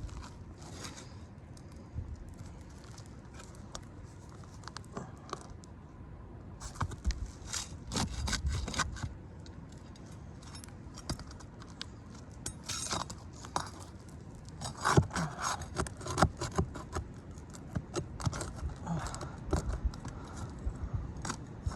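Repeated scraping, clicks and crackles of asphalt roof shingles being pried up and their nails worked loose with a hand tool.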